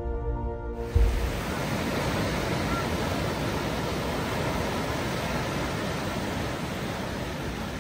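Steady rushing noise with no clear pitch, like room or microphone hiss. A held tone dies away in the first second, and a single thump comes about a second in.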